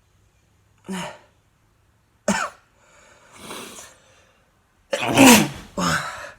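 A man sneezing: two short sharp sounds and a breathy rush of air, then a loud voiced sneeze about five seconds in.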